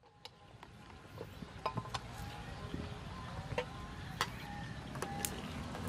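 Light metal clinks and taps of a knife and ladle against bowls and pots, scattered a few times a second, several with a short ring. A low steady background rumble rises at the start.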